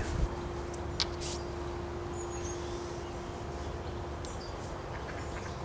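Outdoor woodland background: a steady low rumble with a faint steady hum, a few short high bird chirps, and a single sharp click about a second in.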